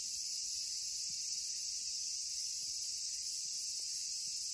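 Cicadas shrilling in a steady, unbroken high chorus.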